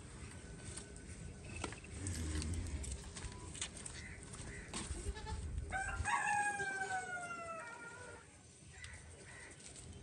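A rooster crows once, a single call of about two seconds starting about six seconds in, its pitch falling slightly toward the end. Scattered light clicks and knocks sound around it.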